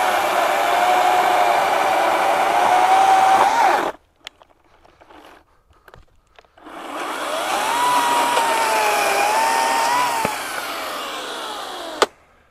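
Ryobi 40V HP brushless 20-inch cordless chainsaw cutting a log, its motor and chain whine wavering under load, which stops abruptly about four seconds in. After a short near-silence the saw spins up with a rising whine, runs, and winds down with a falling pitch, followed by a sharp click near the end.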